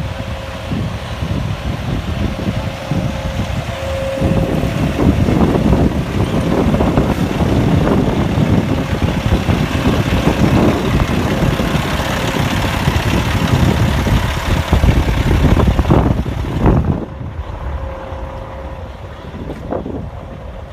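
Wind buffeting the phone's microphone over road vehicle noise; the gusting grows stronger about four seconds in and eases near the end.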